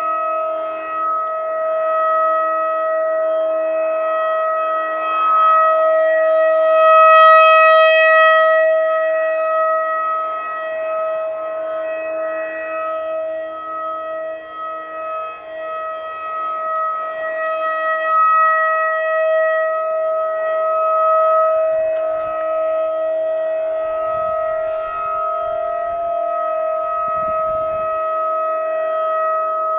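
Federal Signal 2001-DC rotating outdoor warning siren sounding a steady single tone. Its loudness swells and fades slowly as the horn turns toward and away from the listener.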